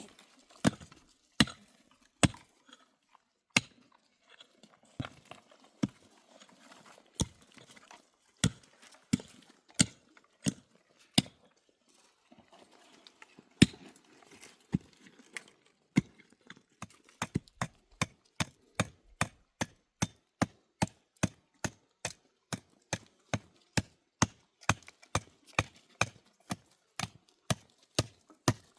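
Repeated sharp blows of a hand tool striking, at first irregular with pauses, then settling into a steady rhythm of about two strikes a second.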